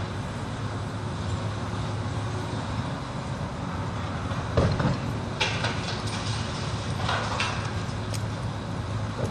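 Crawler crane's diesel engine running steadily, with a heavy thump about halfway through, followed by brief crackling.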